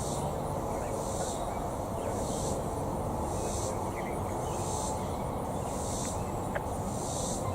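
Insects buzzing in high-pitched pulses about once a second, over a steady low background rumble, with one short click near the end.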